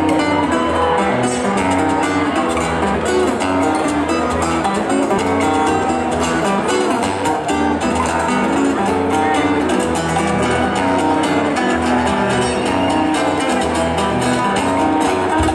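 Live guitars playing an instrumental passage without vocals: acoustic guitar and a second guitar plucking and strumming a melody together.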